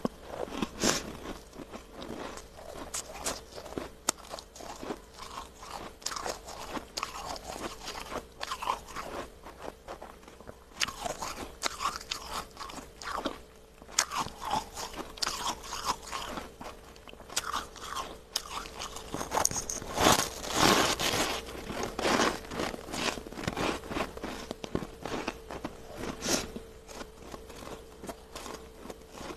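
A person biting and chewing freezer frost: irregular crisp crunches one after another, loudest about two-thirds of the way through, over a faint steady hum.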